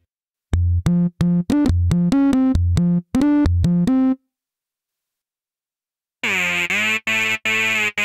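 miniKORG 700S software synthesizer playing a quick monophonic melody of short notes on its 'Greeting Tone' lead preset, then stopping for about two seconds. A brighter, buzzier lead patch then comes in with an upward swoop and carries on as repeated short notes.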